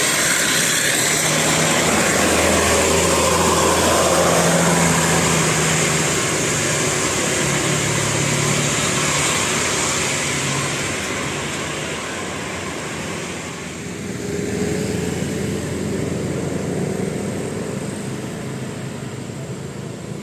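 Road vehicles passing: engine and road noise, loudest over the first ten seconds or so, then dying away with a brief swell about fourteen seconds in.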